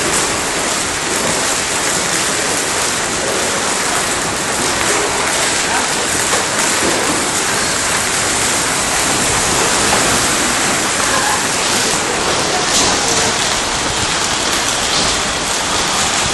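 Hail and heavy rain pelting the street and stone pavement, a dense steady hiss with a few sharper ticks near the end.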